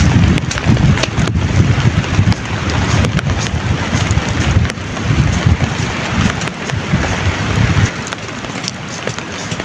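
Heavy rain pouring, with sharp drops hitting close by and gusts of wind buffeting the microphone; the buffeting dies down about eight seconds in, leaving the rain.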